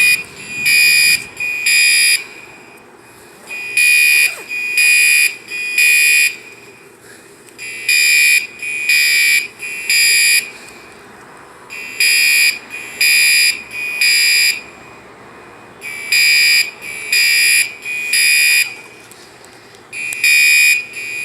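Fire alarm sounding in groups of three high-pitched beeps, a new group about every four seconds. This is the temporal-three pattern, the standard evacuation signal.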